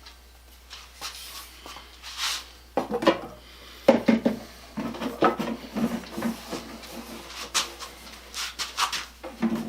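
Hands working on a wooden tool box while fitting its bottom bands: irregular knocks, scrapes and rubbing of wood and metal, busier from about three seconds in.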